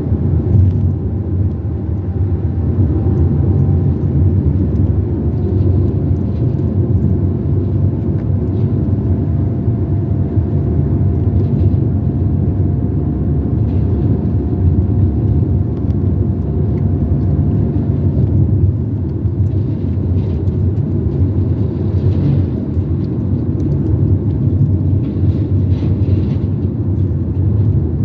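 Car driving along a road: steady engine and tyre rumble, with a faint whine that drifts slightly lower and fades out about eighteen seconds in.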